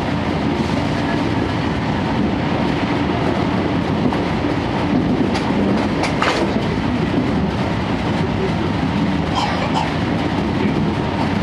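Running noise heard inside a 12-series passenger coach on the move: a steady rumble of wheels on rail with a few sharper clacks over rail joints, and beneath it the steady drone of the Suhafu 12 coach's diesel generator engine.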